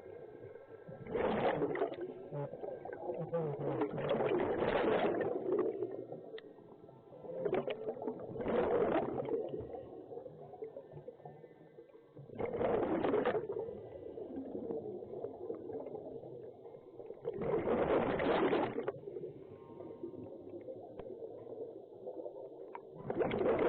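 Scuba diver breathing underwater through a regulator: a gush of exhaled bubbles every four to five seconds, six in all, with quieter sound between breaths.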